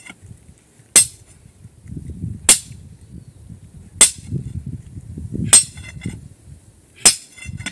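Sledgehammer striking the head of a hand-held steel drill bar set into rock: five sharp metallic blows about a second and a half apart, each ringing briefly. This is hand-drilling a blast hole, the holder turning the bar between strokes.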